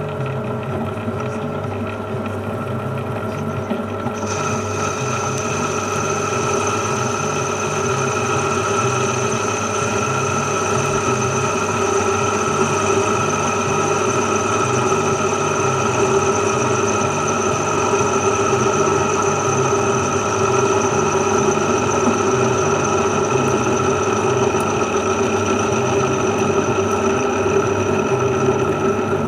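Metal lathe running steadily while turning an aluminium part down to thickness, a machine hum with a steady whine over it. A higher whine joins about four seconds in, and the sound grows slightly louder.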